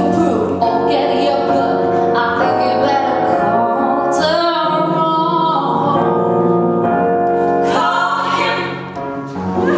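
Live song performance: a female lead singer with three female backing singers singing together in harmony.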